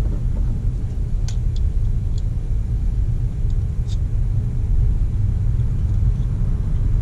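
Steady low background rumble, with a few faint light clicks about one, two and four seconds in from prying at a small plastic retainer in a coil pack connector.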